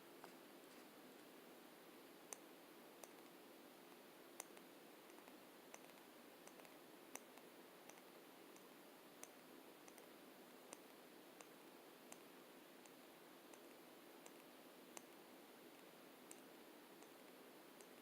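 Faint, sharp clicks from lipstick cases handled close to the microphone, coming irregularly about once a second over a steady hiss.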